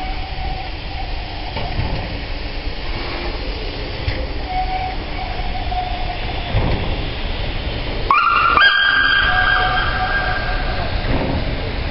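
SNCF 241 P 17 steam locomotive rumbling slowly past at low speed, with faint slow exhaust beats and wheel noise. About eight seconds in, a high whistle blast sounds for about a second and a half.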